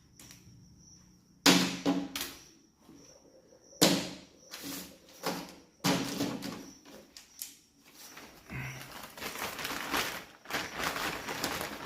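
Metal hand tools knocking and clinking together as they are handled and sorted: three sharp knocks a couple of seconds apart, then about four seconds of quick rattling and clatter near the end.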